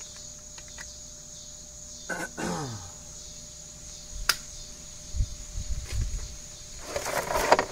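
Crickets chirring steadily in the background, with a sharp click about four seconds in and a few low knocks and rustles as an Allen key is worked on an outboard lower unit's drain plug.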